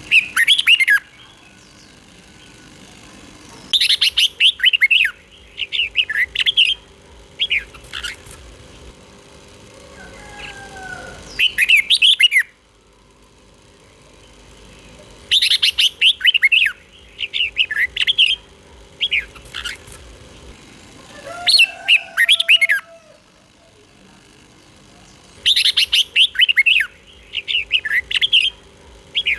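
Red-whiskered bulbul singing quick, bright, chirpy song phrases. They come in three clusters of several phrases each, with pauses of a few seconds between the clusters. A couple of fainter, lower sliding whistles fall in the pauses.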